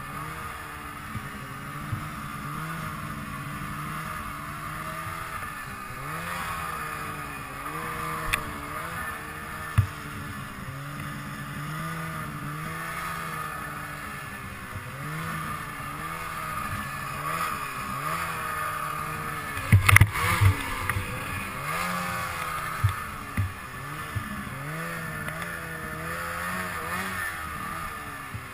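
Polaris snowmobile engine running under a constantly changing throttle, its pitch rising and falling every second or two as the sled works through tight trees in powder. A burst of loud knocks and clatter comes about two-thirds of the way through.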